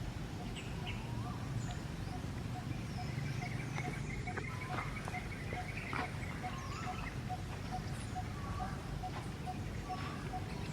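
Outdoor ambience of scattered short bird-like chirps and calls over a low, steady rumble, with a faint, rapid, regular pulsing note, about five a second, running underneath.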